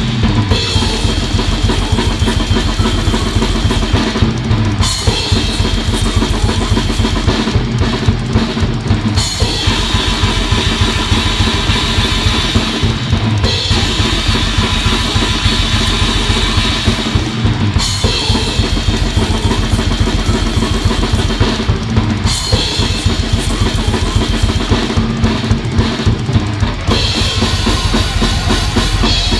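Full drum kit played fast and hard, with dense bass drum strokes, snare hits and cymbal wash, over the band's sustained guitar and bass music. The cymbals drop out and come back every four to five seconds as the parts change.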